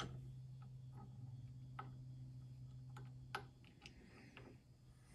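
Faint, scattered clicks and ticks from a bench vise being cranked to press a factory trunnion bearing out of an LS rocker arm in a Summit press tool. The sharpest click comes about three and a third seconds in, over a low steady hum that stops shortly after.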